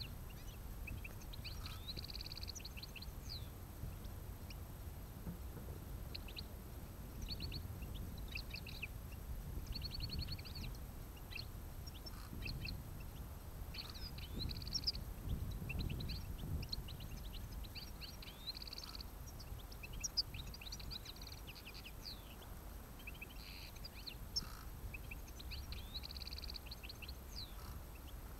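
European goldfinches twittering and calling in quick bursts of short, bright notes and trills, over a steady low rumble.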